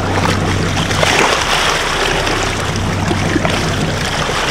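Boat engine running with a steady low hum, under water rushing and splashing along the hull where a sailfish is held alongside.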